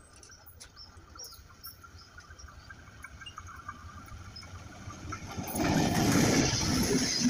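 Faint high chirps over a low rumble that slowly grows, then about five and a half seconds in the noise of an approaching train turns loud and stays loud.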